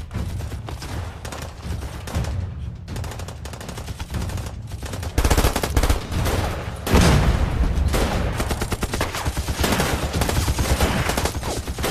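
Battle sound effects of a film: rapid rifle and machine-gun fire in dense volleys, growing heavier and louder about five seconds in.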